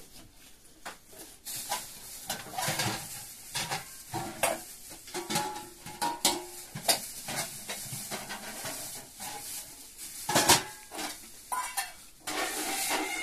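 Tea glasses and a metal teapot clinking on a metal tray, mixed with the crackle of a plastic bag being handled: irregular short clicks and rustles throughout, thickening near the end.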